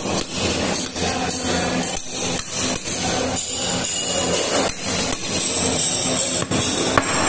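A wooden stick hammering the back of a fish knife to chop through tuna, bone and all, in repeated sharp knocks about two a second, over a steady low hum.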